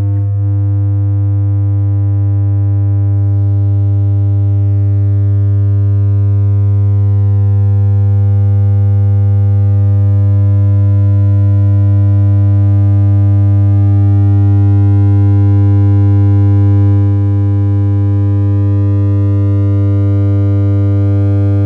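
Steady 100 Hz test tone played through a TL071 op-amp boost circuit pushed into clipping, so it sounds as one steady pitch with many overtones above it. It gets slowly louder as the gain is turned up, then drops a little about 17 seconds in.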